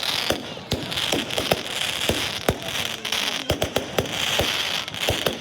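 Fireworks going off: a dozen or so sharp bangs at irregular intervals over a continuous crackle.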